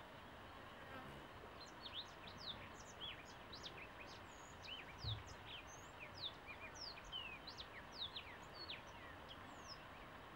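Many birds chirping in quick short notes from about a second in, over a faint steady hum that the garden's beehives make. A single soft low thud about halfway through.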